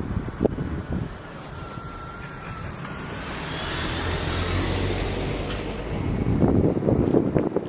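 E235 series electric train running past on its test run, with a whine that rises in pitch and a rushing sound that swells to a peak midway. Wind gusts hit the microphone near the end.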